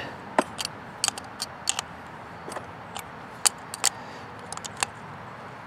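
Scattered light metallic clicks and taps, irregular and a few a second at most, from tools and small parts being handled while a generator carburetor is put back together.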